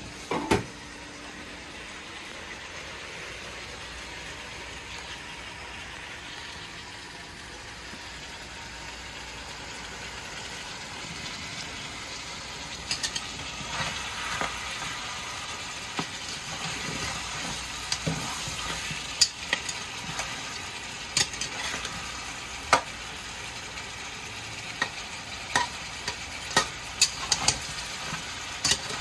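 Turkey necks sizzling as they sear in a metal pot, with a steady hiss, while a metal spoon stirs and scrapes them, giving sharp clicks against the pot from about halfway through. A single knock sounds just after the start.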